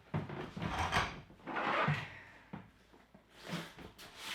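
Something sliding and scraping against a surface twice, each pass lasting about a second, in handling noise.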